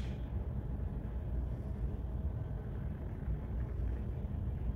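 Steady low rumble of the ferry Salamanca under way, its engines and machinery droning through the hull into the passenger deck.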